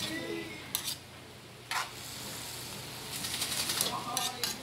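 Metal spoon scraping and knocking against a metal pan while chicken pieces are stirred and fry with a faint sizzle. There are a few separate knocks, then a quicker run of scrapes about three seconds in.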